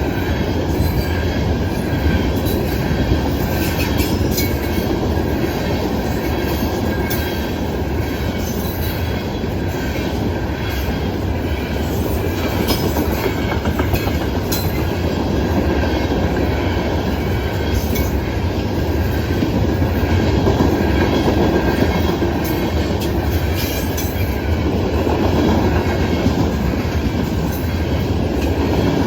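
Loaded grain hopper cars of a Norfolk Southern freight train rolling past: a steady rumble of steel wheels on rail, with scattered sharp clicks and a faint thin wheel squeal.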